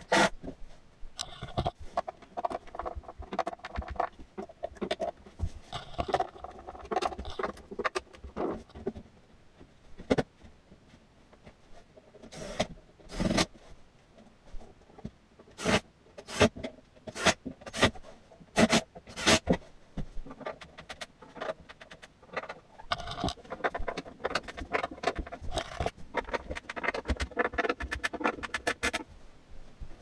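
MDF desk panels being handled and fitted together: board scraping and rubbing against board, with scattered sharp knocks and taps. A quicker run of about six knocks comes between about sixteen and nineteen seconds in.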